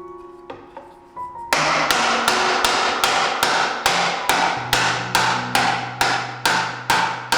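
Steady run of mallet blows, about two to three a second, driving a walnut miter dovetail joint together during assembly. The blows start about a second and a half in, over background music.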